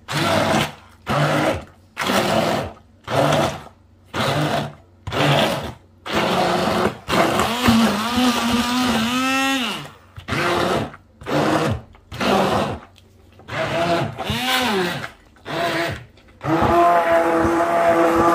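Hand-held immersion blender puréeing avocado, tomato, onion and herbs for guacamole in a glass bowl. It is pulsed in short bursts about once a second, then run for a few seconds, with its pitch dropping as it is released about nine seconds in. It is pulsed again and then run steadily near the end as the mixture turns smooth.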